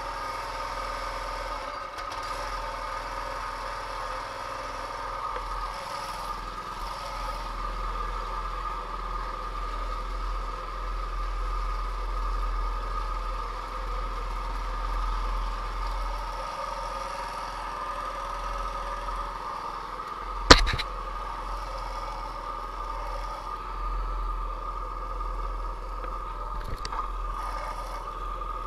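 Mini bike's small engine running steadily while the bike is ridden, with a low rumble underneath. A single sharp knock about twenty seconds in, and a fainter one near the end.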